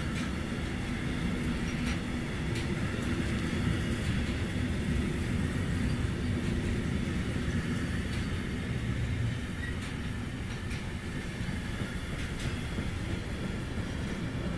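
Intermodal freight train of pocket wagons carrying semitrailers rolling past: a steady low rumble of wheels on the rails, with occasional sharp clicks.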